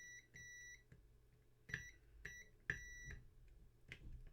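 Multimeter continuity beeper sounding five times, two longer beeps near the start and three shorter ones around the middle, as the jeep headlight switch's contacts close and open: the circuit through the switch is making contact. Several sharp clicks come in between.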